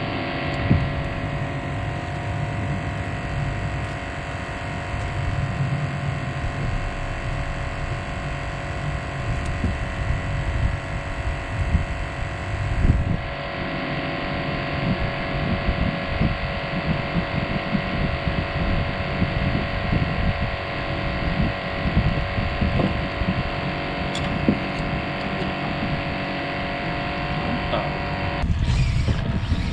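Wind rumbling on the microphone over a steady hum made of several fixed tones.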